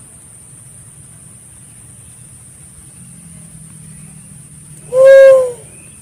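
Pink-headed fruit dove giving a single loud hoot about five seconds in, a short note that dips slightly in pitch at its end. A faint steady high hiss runs underneath.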